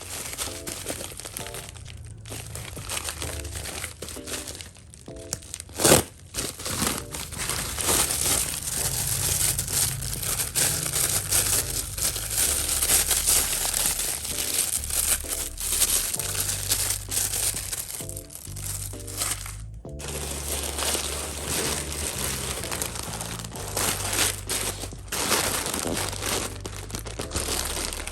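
Packaging crinkling and rustling as it is handled and pulled open, over background music with a stepping bass line. There is one sharp snap about six seconds in.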